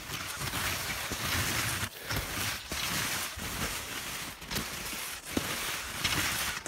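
Fischer S-Bound 98 touring skis sliding forward through snow in kick-and-glide strides: a steady hiss broken by short gaps between strides.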